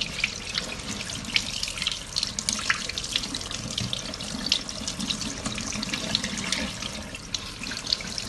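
Tap water running over canned chickpeas as they are rinsed of their salted brine in a sink, with many small splashes and clicks throughout.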